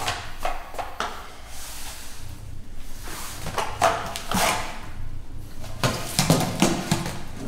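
Wooden practice swords (bokken) drawn from a scabbard and knocking together in a sword drill, a series of short sharp clacks and scrapes, with uniforms rustling and knees and feet shifting on the mats.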